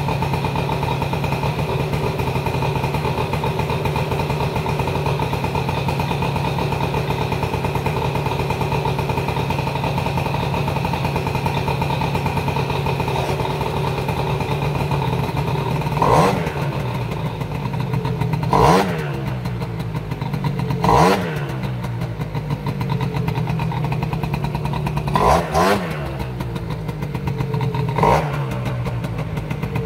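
Gilera Runner scooter engine running at idle after its rebuild, then from about halfway given about six short throttle blips, each a quick rise and fall in revs, two of them close together.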